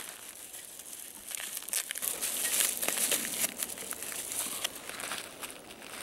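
Plastic crinkling: a Ziploc bag and the plastic wrapping around a ferro rod being handled, a dense run of small crackles that is busiest in the middle.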